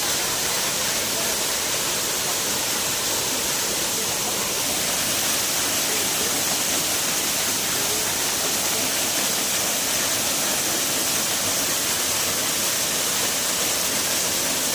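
Bamni Falls waterfall: the steady, even rush of falling water.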